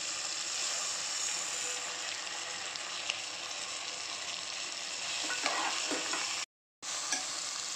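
Onion-tomato masala sizzling steadily in hot oil in an aluminium pressure cooker while roasted green gram is stirred in with a metal slotted spatula. The sound drops out completely for a moment about six and a half seconds in.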